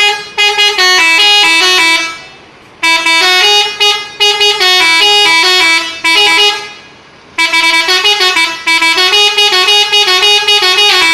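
Bus's musical multi-tone air horn (Indonesian "telolet" horn) playing a stepping tune in three loud phrases, with short breaks after about two and seven seconds.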